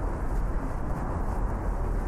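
Steady low rumble of city background noise, with faint footsteps of someone walking about twice a second.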